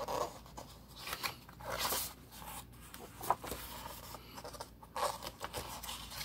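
Rustling and scraping of record sleeves being handled and shuffled by hand, with a sharp click about three seconds in.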